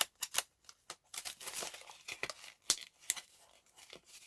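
Packaging crinkling and tearing in irregular crackles and snaps as a new stationery item is unwrapped by hand.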